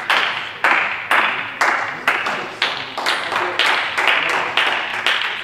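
Spectators clapping in unison, about two claps a second, with the claps echoing in a large hall.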